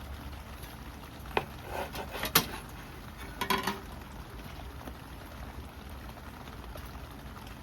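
Objects being handled, with a few sharp clicks and two short bursts of clatter in the first four seconds over a steady low hum.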